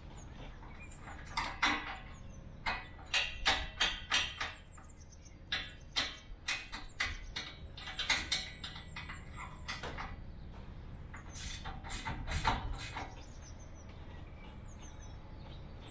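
A spanner working the bolts on a bullbar mounting bracket, tightening them: a run of irregular short clicks and clinks in uneven groups, the loudest cluster near the end.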